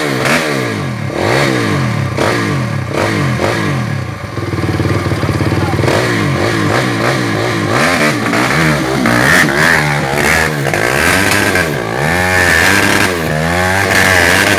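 250 cc dirt bike engine revving up and down again and again, rising and falling in pitch every second or so, as the bike struggles up a steep rocky climb with its rear tyre spinning.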